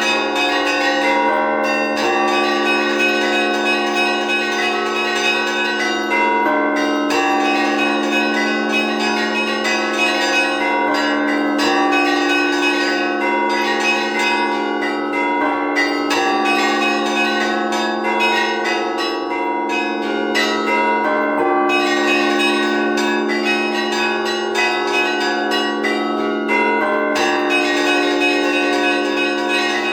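Orthodox church bells of Kharkiv's Annunciation Cathedral rung in an improvised peal. The low tones of the big bells hum on steadily while smaller bells are struck in quick, continuous patterns over them.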